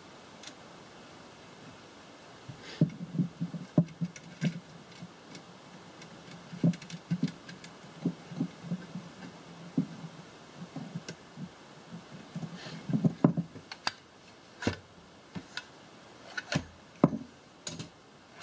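Irregular light knocks, taps and metallic clicks of a 1/4-inch bolt and lock nut being fitted by hand through the hinge of a sheet-metal barrel mount and wooden stock, with the parts knocking on a wooden bench. A few sharper clicks come near the end.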